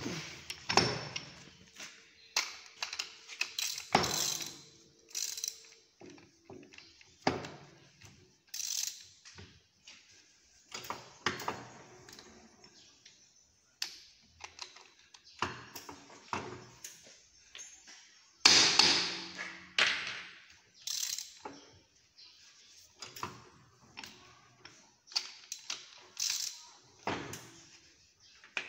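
Heavy four-jaw lathe chuck being seated on the spindle nose and tightened down with a key: irregular metal clanks, taps and ratcheting clicks.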